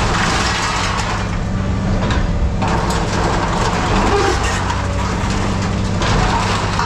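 A heavy machine's engine running steadily under the crunching and grinding of scrap metal being compacted in a baler. The crunching swells and eases, loudest at the start and again near the end.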